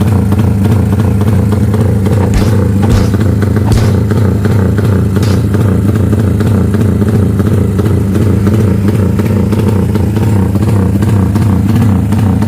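Racing motorcycle engine running loud and steady at a fast idle, its pitch holding even, with a few sharp clicks about two to five seconds in.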